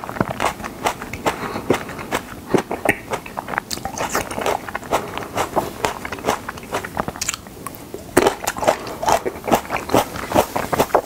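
Close-miked chewing of cherry tomatoes: wet bites and squishing mouth sounds with many small clicks, easing briefly about seven seconds in before picking up again.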